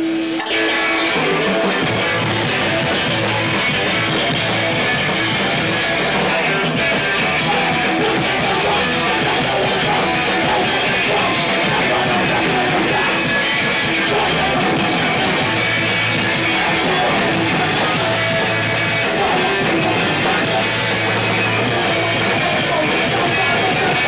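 Hardcore punk band playing live: loud, dense guitar-driven punk that kicks in about half a second in and keeps going at full tilt.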